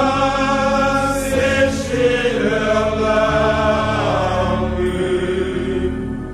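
Several voices singing a slow song in long held notes, with one voice wavering in vibrato above the others.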